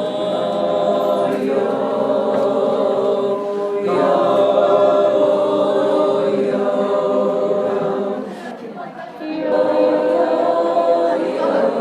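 Voices singing long held chords, like a choir, each chord sustained for several seconds before moving to the next, with a brief drop in loudness about nine seconds in.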